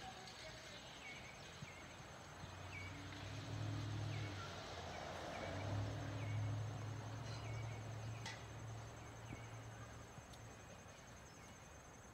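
Outdoor ambience: insects trill steadily, and a small bird chirps about once a second. A low hum swells from a few seconds in, is loudest around the middle, and fades away before the end.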